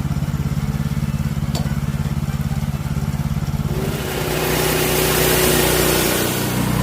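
Small gas engine running steadily. From about four seconds a loud hiss with a steady whine joins it for about two and a half seconds, like a portable sawmill's blade cutting into a log.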